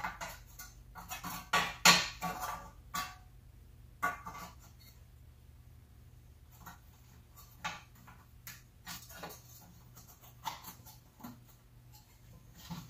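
Scattered light clinks and knocks of metal parts being handled and test-fitted onto a small engine on a workbench, about a dozen separate taps spread irregularly, over a faint steady low hum.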